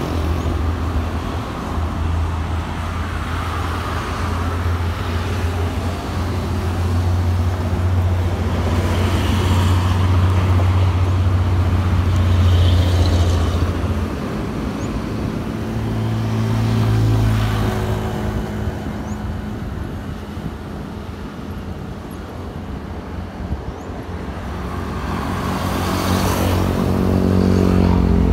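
Road traffic on a busy highway, with cars, trucks and motorbikes passing. It is a steady low rumble that swells several times as vehicles go by.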